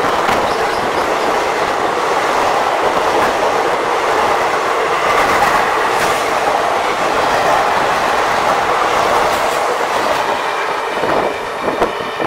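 Passenger coaches of the Kakinada–Mumbai LTT Express passing at speed on the adjacent track, very close: a steady, loud rush of wheels on rail with clickety-clack. The noise falls away about eleven seconds in as the last coach goes by, with a few sharp clacks.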